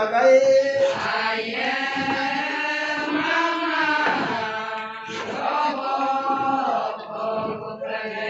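A group of women chanting an Adi ponung song together in unison, in long drawn-out phrases with brief breaks between them.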